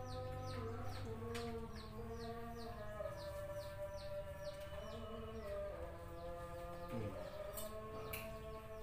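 Chickens calling: a string of short, high, falling peeps at about three a second over longer drawn-out calls that shift in pitch.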